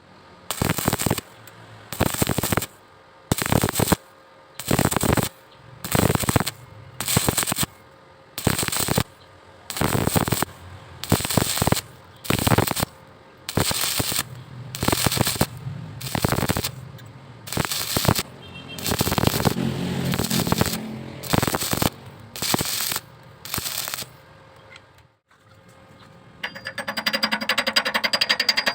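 Electric arc welding laid down in short bursts: about nineteen crackling welds, each under a second, with brief pauses between them. Near the end a rapid, steady scratching starts, like brushing or sanding the metal.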